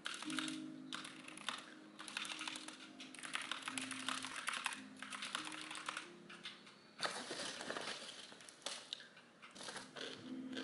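Computer keyboard typing in quick bursts of clicks, over soft background music with long held notes.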